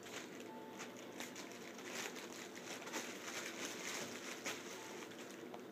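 Faint rustling and light scratchy ticks of a fabric cat play tunnel as a cat moves around inside it.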